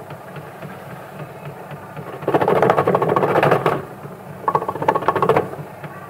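Climax washing machine's wash motor running with a steady low hum, driving the pulsator through a freshly tightened belt. Twice, a loud rapid rattling as a hand presses against the spinning pulsator and the pulsator keeps turning: the belt no longer slips and the drive has its full power back.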